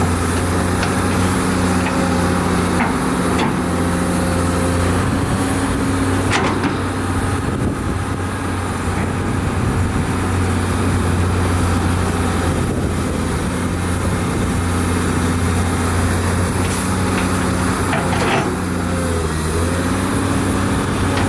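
Heavy diesel engine of construction machinery, an excavator or dump truck, running steadily under load. Its pitch dips briefly and recovers near the end, and a few sharp metal clanks sound over it.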